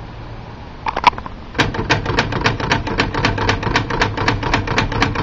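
L.C. Smith manual typewriter: a couple of single clicks about a second in, then a fast, even run of clicks at about seven a second, as the machine is worked to test a newly set margin.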